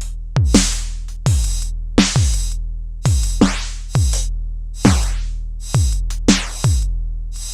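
Electronic drum pattern from an Endorphin.es Queen of Pentacles Eurorack module: deep booming kicks that drop in pitch and ring on, alternating with bright noisy snare and hi-hat hits, at a steady tempo a little under one beat a second.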